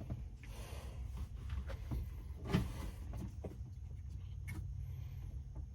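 Scattered clicks and light knocks of plastic parts and wiring being handled as a plug is fitted to the heater blower switch, over a steady low hum.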